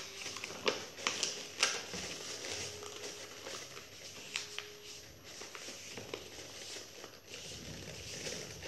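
Sheet of black chart paper crinkling and rustling as it is folded and pressed around a cardboard box by hand, with a few sharp crackles.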